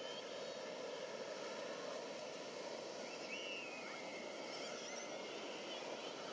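A steady wash of outdoor background noise, with a few faint, short, gliding high chirps about three seconds in and again near five seconds.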